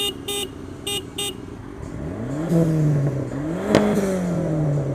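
Car engine revving up, holding, blipped higher again with a sharp click, then dropping back, after a few short horn toots in the first second.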